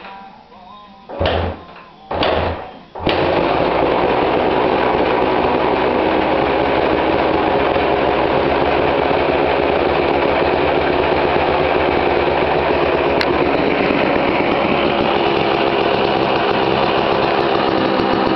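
Kawasaki KDX220 two-stroke single-cylinder dirt bike engine being started: two short bursts, then it catches about three seconds in and runs steadily. It has just been filled with fresh gear oil.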